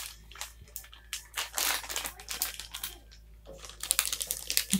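Wooden spatula scraping and stirring dry semolina in a non-stick pan: an irregular run of scrapes and rustles that grows busier near the end.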